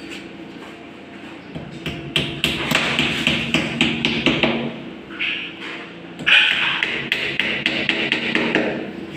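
Claw hammer tapping plastic wall plugs into drilled holes in a tiled wall: a run of quick light taps, several a second, starting after about a second and a half, with one harder knock about six seconds in.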